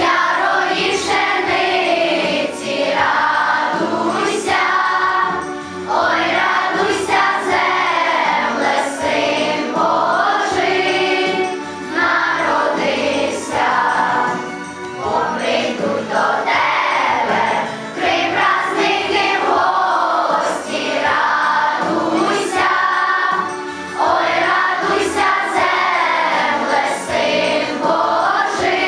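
A choir singing a song with musical backing, jingle bells ringing along.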